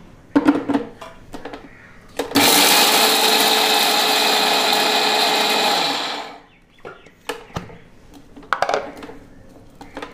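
Electric mixer grinder (mixie) with a steel jar grinding soaked rice into a coarse, puttu-style powder: the motor starts about two seconds in, runs loud and steady for about four seconds, then winds down. Knocks and clatters of the steel jar being set on the base and lifted off come before and after the run.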